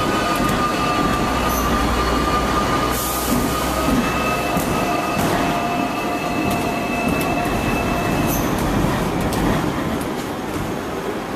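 Hong Kong electric tram running on its rails, its wheels squealing in steady high tones over the rumble of the car, with scattered sharp clicks.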